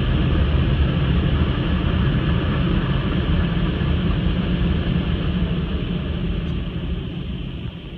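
Car wash air-dryer blowers giving a steady rush of air with a deep rumble, heard from inside the car; it slowly grows quieter near the end as the car pulls away from the exit.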